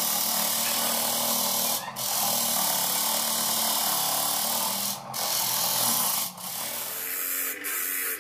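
Homemade disc sander driven by an old electric fan motor, its abrasive disc grinding the edge of a plywood piece held against it: a steady rasping hiss over a low motor hum. It dips briefly three times, and the low hum falls away near the end.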